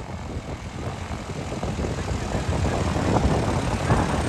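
Jet airliner engines running, heard as a steady low noise that slowly grows louder.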